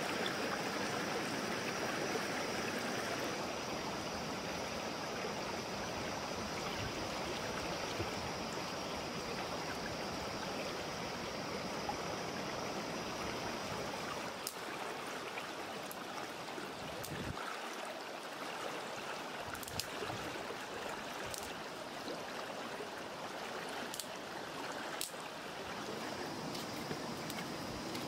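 River water flowing: a steady rushing stream. A thin high-pitched drone sits over it through the first half and again near the end, and sharp scattered clicks come in the second half.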